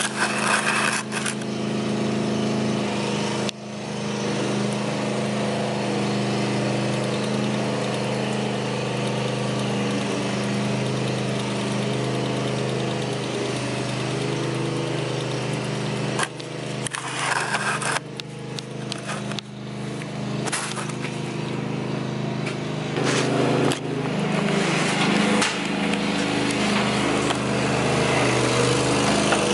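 A lawn mower engine running at a steady speed, with a few abrupt breaks and dips.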